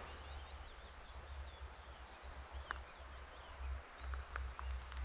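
Small birds singing: high chirps and whistled notes, with a rapid trill of repeated notes at the start and another near the end, over a low, steady rumble.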